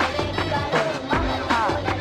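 Recorded dance music played for a stage dance, with a steady beat and a sliding melody line over it.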